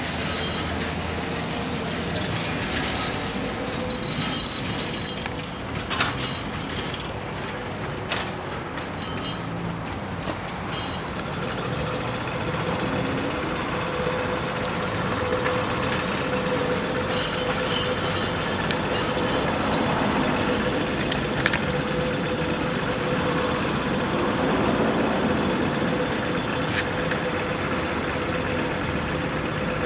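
Trams and street traffic running by at a tram junction: a steady vehicle noise, with a steady tone that comes in partway through and holds, and a few sharp clicks.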